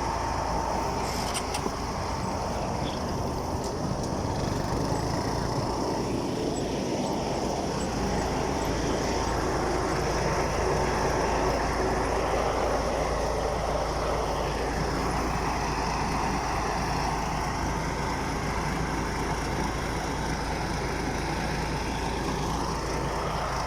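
Rice combine harvester's engine running steadily, with a continuous even hum.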